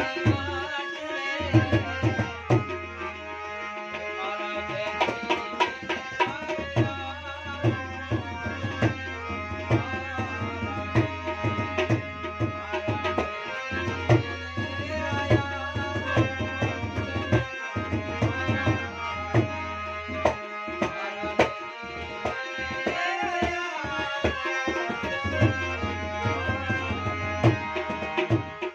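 Instrumental passage of a Gujarati bhajan: harmonium playing a sustained melody over a steady tabla rhythm, with low bass strokes under the sharper strikes.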